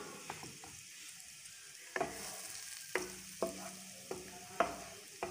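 Butter and desi ghee sizzling faintly as they melt in a nonstick pan, while a wooden spatula stirs them. From about two seconds in, the spatula knocks against the pan about six times, each knock ringing briefly.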